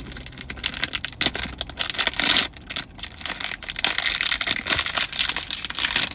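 Crinkly packaging of a Sonny Angel blind box being torn open and handled by hand: a dense run of rustles, crackles and small clicks, easing off briefly about two and a half seconds in.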